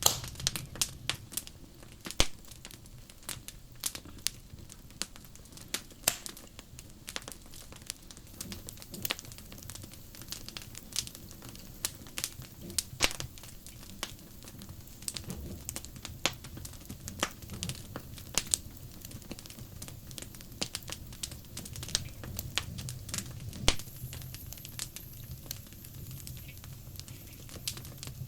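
Wood fire burning, with irregular sharp crackles and pops several times a second over a faint low hum.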